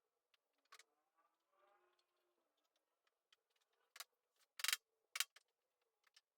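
Sparse faint clicks, then three sharper knocks between about four and five seconds in, as of wood or tools being handled.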